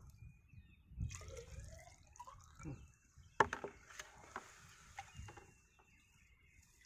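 Water poured from a plastic measuring cylinder into the inner ring of a double-ring infiltrometer, splashing and trickling faintly as the water that has soaked into the soil is topped up. Two sharp clicks come in the middle.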